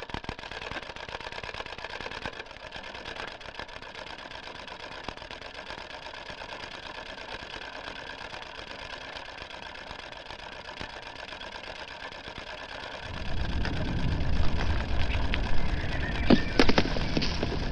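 Cine film projector running: a steady, rapid mechanical clatter. About thirteen seconds in, a louder, deeper noise joins it, with a few sharp knocks near the end.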